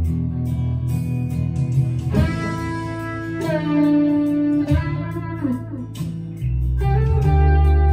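Harley Benton ST-Modern HSS electric guitar played through an overdrive pedal: single notes picked and left to sustain, with wavering string bends about five seconds in, then a low chord struck and held near the end.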